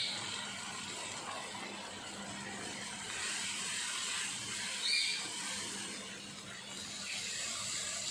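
Onions and tomatoes sizzling in hot oil in a wok, a steady hiss, while a wooden spoon stirs them through the pan. A brief, sharper sound comes about five seconds in.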